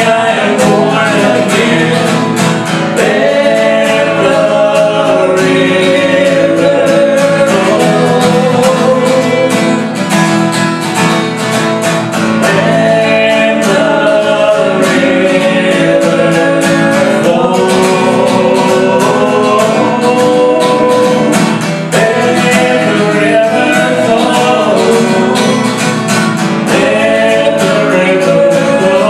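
A man and a woman singing a worship song together, accompanied by a strummed acoustic guitar.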